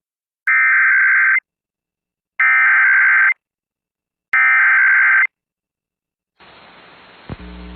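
Emergency Alert System SAME header: three identical bursts of about a second each of shrill digital data tones, separated by about a second of silence, the coded header that opens an EAS civil emergency message. About a second before the end a faint hiss and low hum come in.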